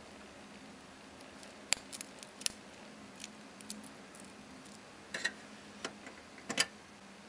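Scattered sharp clicks and light metallic taps at irregular intervals, the loudest a little under 2 s in and near the end, over a faint steady hum. The taps come from a stainless steel Cartier Pasha Grille wristwatch with a steel bracelet being handled.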